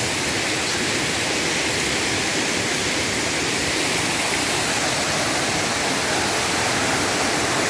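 Steady rushing of water from a waterfall and its stream, an even, unbroken hiss.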